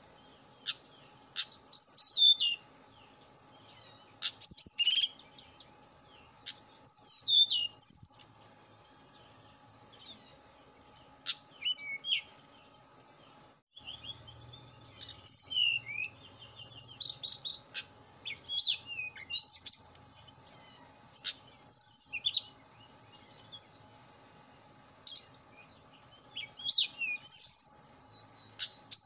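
Male hill blue flycatcher (tledekan gunung) singing short, scattered phrases of high, sharp whistled notes, many sliding down in pitch, with pauses of a second or more between phrases.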